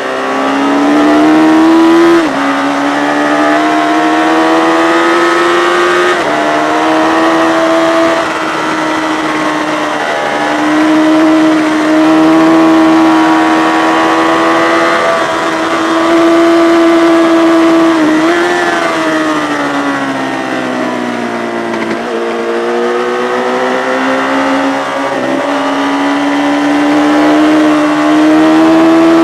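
Yamaha FZ600 racing motorcycle's inline-four engine at high revs. Its pitch climbs under acceleration and drops sharply at each gear change, and about two-thirds of the way through it falls for a few seconds as the bike slows before climbing again.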